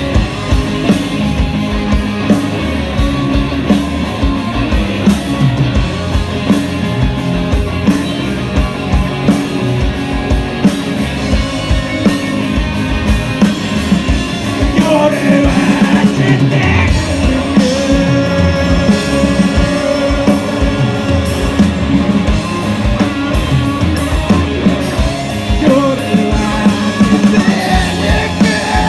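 A rock band playing live with electric guitar, bass and drums. It is loud and runs without a break, with gliding pitched lines about halfway through.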